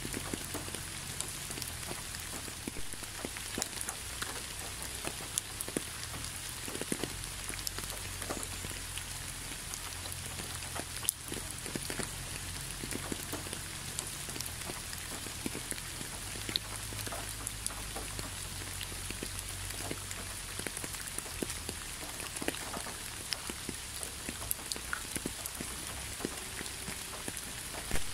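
Steady rain: an even hiss with many separate drops clicking sharply, scattered irregularly throughout.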